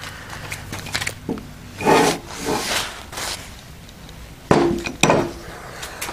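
Heavy steel lathe backing plate being handled and turned over on a workbench: a clunk and rattle about two seconds in, then two sharp metal clanks about half a second apart, each with a short ring.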